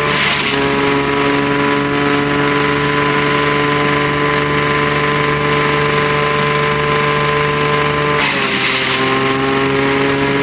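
Tractor engine driving a PTO-powered banana-waste shredder, running with a steady hum. At the start and again about eight seconds in, banana stalks going through the shredder make a short burst of shredding noise and the machine's pitch drops under the load.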